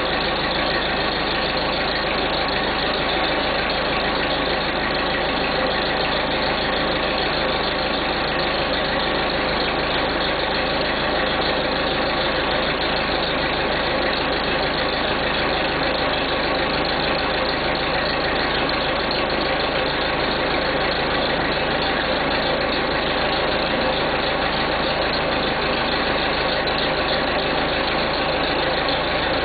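1976 Massey Ferguson 50D backhoe's diesel engine idling steadily, shortly after a cold start.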